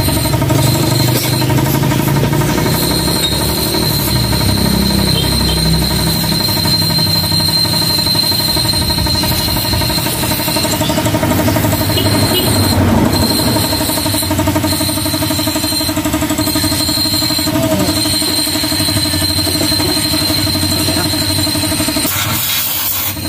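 Aerosol CVT cleaner hissing as it is sprayed into a scooter's clutch bell, over a steady machine drone with a high whine that cuts in and out.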